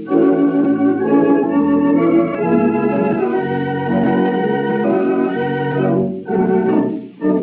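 Wurlitzer theatre pipe organ playing a popular dance tune in sustained, shifting chords, with brief breaks between phrases about six and seven seconds in. The sound is muffled and narrow, as on an early-1930s broadcast recording.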